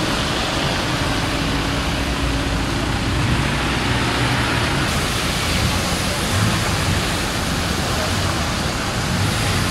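Cars driving slowly through a flooded street, their tyres hissing and splashing through standing floodwater in a steady rushing noise, with an engine hum in the first few seconds.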